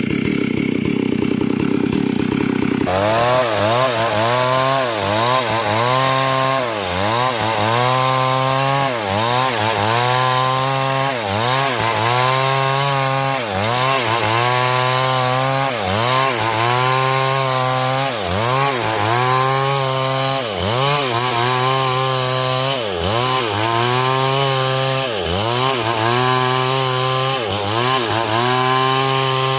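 Chainsaw cutting hard coconut wood. For the first three seconds it runs at high revs with a harsh rasp. After that the engine note keeps dropping and recovering, about once every second or two, as the chain bites into the wood under load and is eased off.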